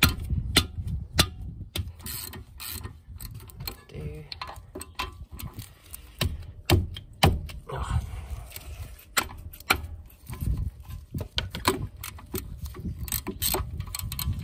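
Hand ratchet with an H7 hex bit on a brake caliper guide pin bolt, clicking in irregular runs as the handle is swung back and forth to crack the bolt loose.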